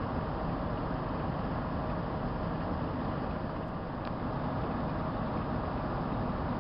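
Steady low rumble of stopped vehicles idling, with a faint steady hum.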